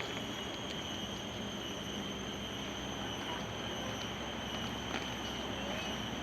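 Steady outdoor background noise, even and unbroken, with a constant high-pitched whine running through it.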